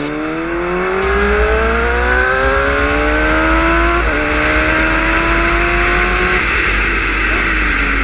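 1000 cc superbike engine pulling hard under acceleration, its pitch climbing steadily, then dropping at an upshift about four seconds in and climbing again. After about six seconds the engine note fades under loud wind rush.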